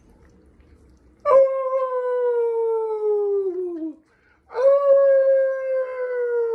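Two long, falling howls: the first starts about a second in and lasts nearly three seconds, and the second follows half a second later.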